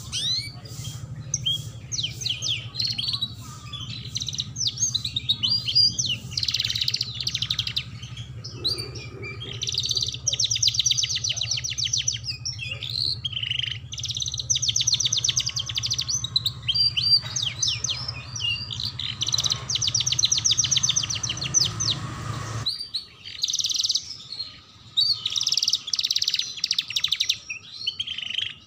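Domestic canary singing a long, continuous song of high-pitched rapid trills and chattering phrases, over a low steady hum that cuts off about three-quarters of the way through.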